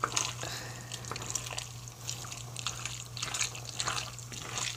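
Macaroni, meatballs and cream sauce being stirred with a spoon in an enamelled pot: soft, irregular wet squelches and small clicks, over a steady low hum.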